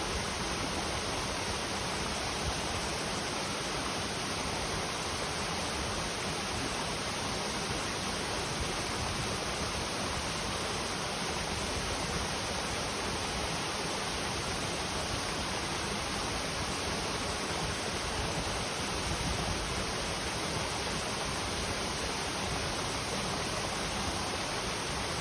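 A clear river flowing: a steady, unbroken rush of water.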